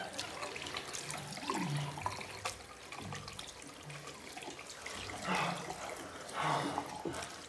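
Water running from a tap into a sink as hands are washed under it, a steady splashing hiss. A few short, low voice-like sounds come through over it, the clearest near the end.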